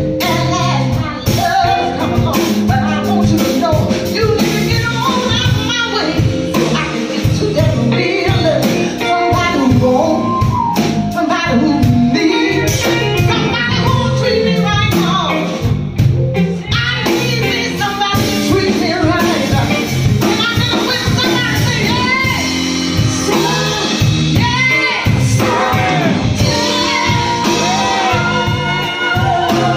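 Live band playing with a woman singing lead into a microphone, over electric guitar and drums.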